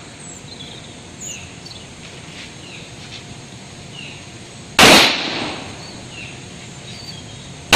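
Two pistol shots about three seconds apart, each a sharp crack that echoes off briefly. The second comes at the very end. Faint bird chirps are heard between them.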